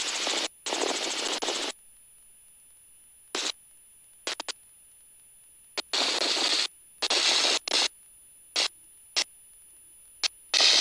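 Helicopter intercom cutting in and out: about ten short bursts of rushing wind and cabin noise, each switched on and off abruptly, with quiet gaps between.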